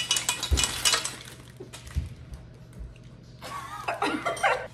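Plastic bag of chocolate chips crinkling as it is handled, strongest in about the first second, with a couple of dull knocks. Near the end there is a short, muffled vocal sound.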